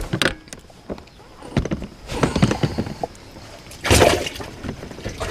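Irregular knocks, thumps and rustling in a fishing boat, likely from a just-landed bass being handled and unhooked, loudest about four seconds in.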